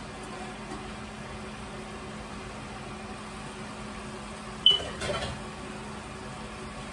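A steady background hum with one sharp metallic clink about four and a half seconds in, ringing briefly and followed by a short rattle, as metal kitchenware is set down beside the stove.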